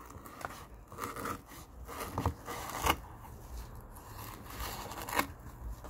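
Knife blade cutting into coarse natural-fibre rope, with scratchy scraping and a few sharp crackles as the fibres part, as a sharpness test of the Miguel Nieto Shaman Bushcraft knife's N695 steel edge.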